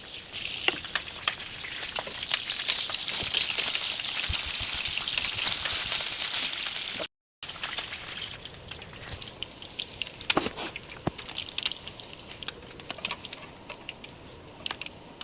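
Food sizzling as it fries in hot oil, a steady hiss for about the first seven seconds. After a brief break it is quieter, with scattered clicks and taps.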